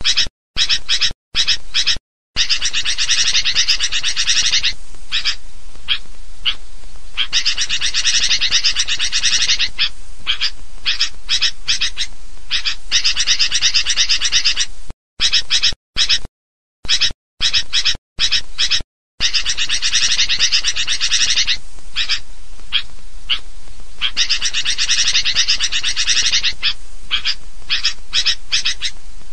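Sooty-headed bulbuls calling in a dense, busy chorus of chirps and squawks, a bird-lure recording. The track breaks off several times into abrupt dead silence, near the start and again about halfway through.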